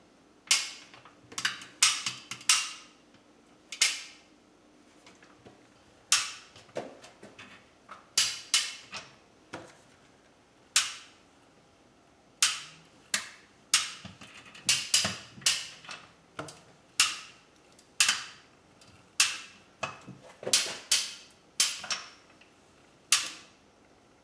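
Come-along ratchet clicking as its handle is worked, pulling a hanging electric motor up under load: a long run of sharp, irregular clicks, some single and some in quick clusters, with short pauses between.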